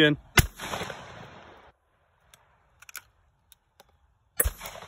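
Two shots from a Harrington & Richardson single-shot 12-gauge shotgun firing birdshot target loads, the first just after the start and the second about four seconds later, each with a ringing tail. Between them come a few small clicks and clacks as the break-open action is opened, the spent hull cleared, a fresh shell loaded and the hammer cocked.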